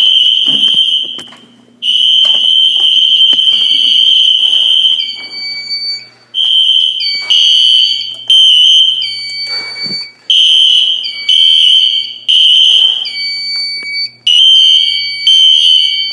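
Fire alarm horn sounding a loud, high-pitched tone, set off by the zone 1 smoke detector and not silencing. It starts in long blasts, then about six seconds in changes to repeated groups of three shorter blasts, each group followed by a short pause.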